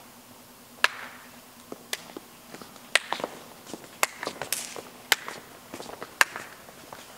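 Footsteps of several people walking slowly on a hard floor: sharp steps about once a second, with fainter ones between.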